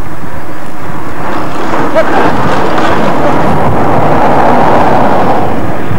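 Steady engine and road noise from race-following vehicles mixed with wind on the microphone, swelling a little in the second half.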